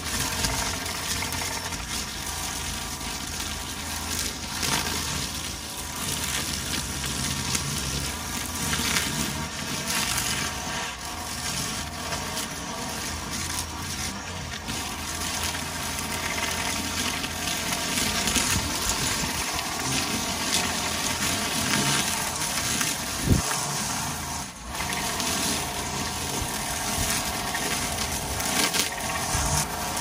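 String trimmer running steadily as it cuts through tall grass and weeds, its motor note holding fairly even, with one sharp knock about two-thirds of the way through.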